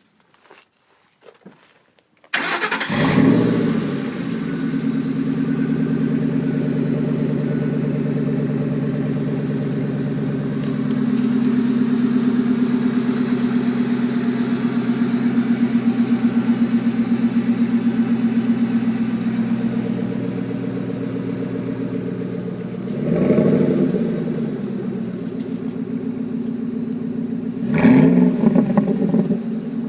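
A 2005 Ford F-150's 4.6-liter V8 starts about two seconds in, flares briefly, then settles into a steady idle heard through a Dynomax Ultraflow muffler and a 3.5-inch tip. Two short revs come near the end.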